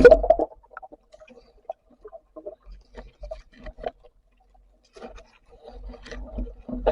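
Underwater sound on a spearfishing dive: scattered faint clicks and ticks, with a burst of bubbling noise at the start and noise building again near the end.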